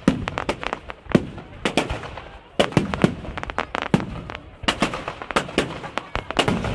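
Fireworks display: many sharp bangs and crackles of bursting fireworks, coming in quick clusters with short lulls between.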